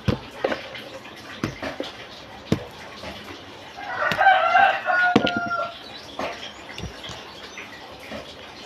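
A rooster crows once, a call of about two seconds starting about four seconds in and the loudest sound here. Around it come light, scattered knocks from hands and a spoon working in a steel mixing bowl.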